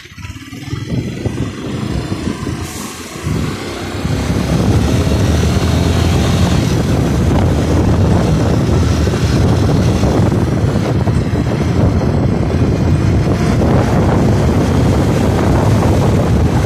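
Motorcycle running, heard from the bike itself, with wind rushing over the microphone. It gets louder over the first few seconds as the bike picks up speed, then holds steady.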